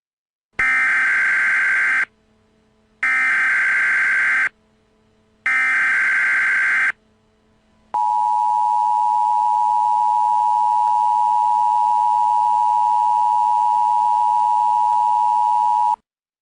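Emergency Alert System signal: three bursts of SAME header data tones, each about a second and a half long, then the two-tone EAS attention signal held steadily for about eight seconds before it cuts off. It marks the start of an emergency alert message.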